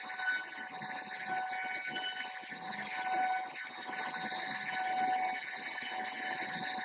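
CNC router spindle running with a steady high whine while the bit cuts into wood, with a rough cutting noise under it.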